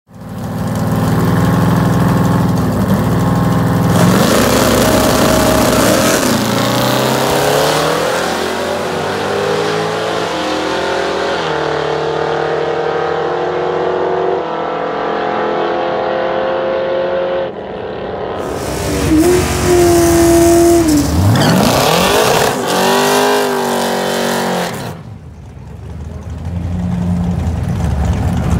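Big-block Chevy V8 in a G-body Chevrolet Malibu at full throttle off the drag-strip start, its pitch climbing and stepping through the gear changes as the car pulls away and fades. After a break the engine is revved hard again, with sharp rising revs, then settles to a low steady idle near the end.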